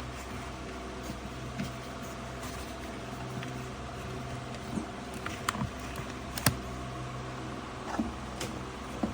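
Steady low electrical hum with a few scattered small clicks and taps, the loudest about six and a half seconds in, as the coin-timer wiring is handled and powered up.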